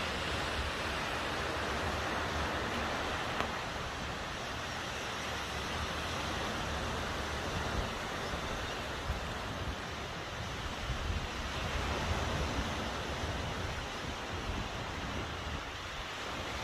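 A steady outdoor rushing noise, with wind buffeting the microphone in uneven low rumbles.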